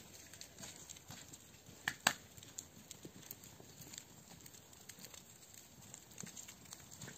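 Scattered soft steps of a person and goats' hooves on thin snow, with two sharper clicks close together about two seconds in.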